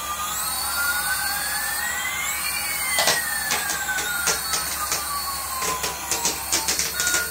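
Electronic jet-flyby sound effect: a whine rising slowly in pitch for about two and a half seconds, then falling away slowly, over a repeating high warble. Sharp clicks start about three seconds in.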